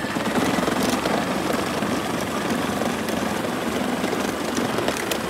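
Power Wheels Dune Racer electric ride-on toy car driving on asphalt: its motors and gearboxes whir while the hard plastic wheels rumble over the road, a loud, steady noise that cuts off suddenly just after the end.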